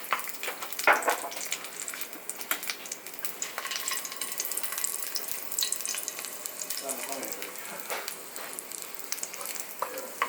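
Stir-fry sizzling and crackling in a hot pan, with a few sharp knocks, the loudest about a second in.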